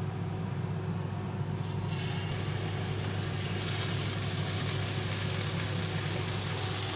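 Two pepper-crusted beef steaks laid into a hot nonstick frying pan start to sizzle about two seconds in. The hiss builds and then holds steady over a steady low hum.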